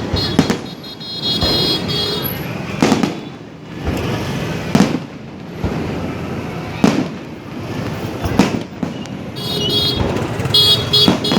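Fireworks display: aerial shells bursting in a run of about six sharp bangs, roughly two seconds apart.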